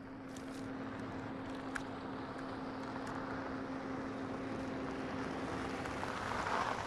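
A vehicle approaching on the road: a steady hum under a rushing road noise that grows louder toward the end and cuts off suddenly.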